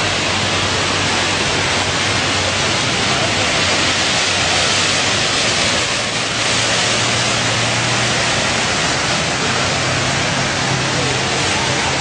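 Steady rushing noise of ocean surf breaking on the beach, loud and even throughout.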